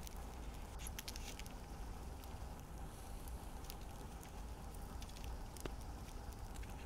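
Faint crackling of a wood and dried-dung fire, then a shallow stream running, with small clicks and splashes of hands washing food in the water.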